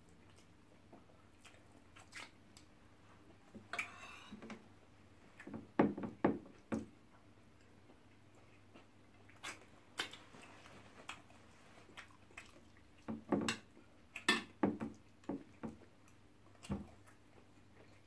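Close-miked eating sounds: wet chewing and lip-smacking with scattered short clicks and taps, coming in a few denser clusters.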